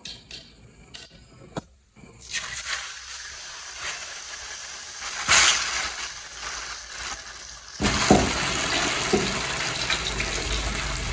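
Pancake batter ladled into a pan of hot oil: after a few light clicks, the oil bursts into loud, steady sizzling about two seconds in, with sharper surges of sizzle around five and eight seconds in as more batter goes into the pan.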